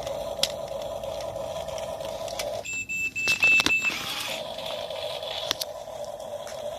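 Huina RC excavator's built-in sound module playing a simulated engine running through its small speaker, a steady electronic hum. About three seconds in the engine sound drops out for a moment while a high electronic beep sounds three times, then the engine sound comes back.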